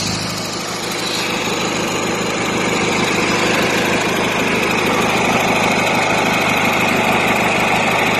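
Ford YT 12.5 garden tractor's Briggs & Stratton 12.5 hp Twin II I/C twin-cylinder engine running steadily.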